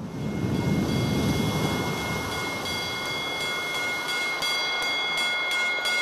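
A low, steady rumble with a hanging gas cylinder used as a bell ringing over it. The cylinder is struck repeatedly with a metal bar, about three strikes a second, and the clanging grows louder toward the end.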